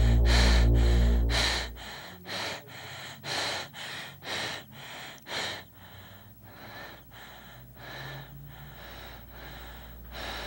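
A person breathing hard in short, rhythmic breaths, a louder one about once a second with softer ones between, growing fainter about six seconds in. Music with a deep bass plays at the start and cuts off about two seconds in.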